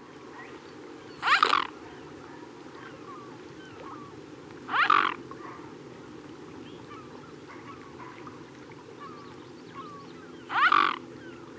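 An animal calling three times, each a short loud call, the second about three and a half seconds after the first and the third about six seconds later, over a steady background hum with faint chirps between the calls.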